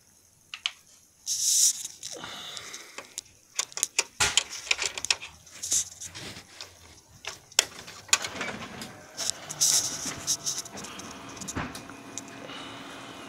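Irregular clicks, taps and rubbing close to the microphone as the phone is handled and buttons on the Canon C5535 copier's keypad are pressed. A faint steady machine hum sets in near the end.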